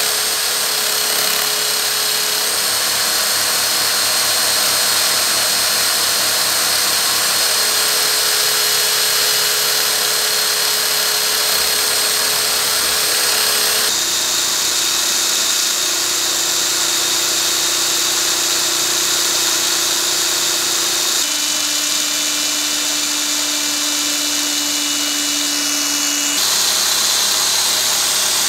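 Electric drill running steadily with a rubber polishing wheel in its chuck, a brass plate from a spirit level held against the spinning wheel to polish it. The whine stays even, then jumps to a different pitch about halfway through, again about two-thirds through, and once more near the end.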